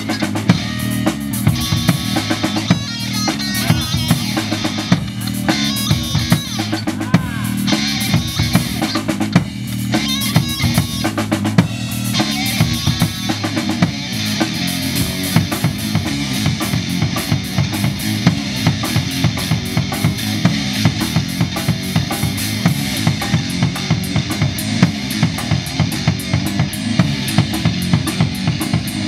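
Live rock band playing an instrumental passage: a drum kit with bass drum, snare and cymbals keeping a steady driving beat under electric guitar and electric bass.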